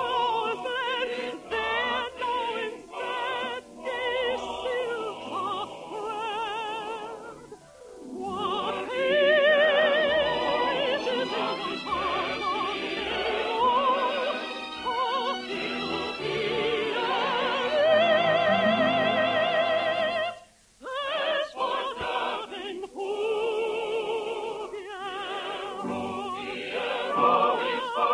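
Operetta finale: a singer holds long notes with heavy vibrato over orchestral accompaniment. The music breaks off briefly about twenty seconds in, then resumes.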